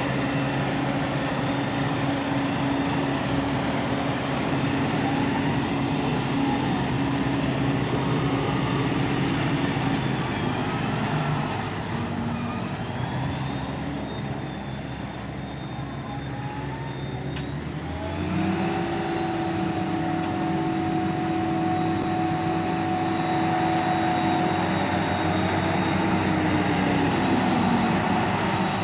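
A forage harvester's engine and chopping drum running steadily under load, heard from inside the cab. Partway through the sound eases off for a few seconds; then, about two-thirds of the way in, a new steady hum rises in and holds before dropping away near the end.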